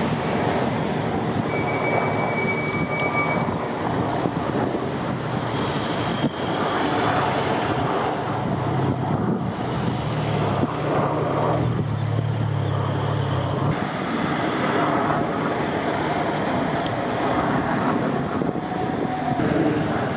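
Steady rumble of passing vehicles on a busy road, with a run of short high beeps about twice a second near the end.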